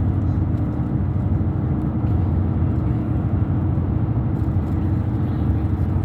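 Steady road and engine noise heard from inside a moving car's cabin, a low, even rumble with no distinct events.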